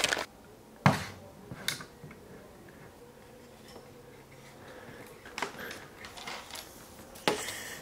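Handling noise from a film-scanning light panel being moved by hand: a few sharp clicks and knocks spread over several seconds, the loudest about a second in, with quieter ticks between them.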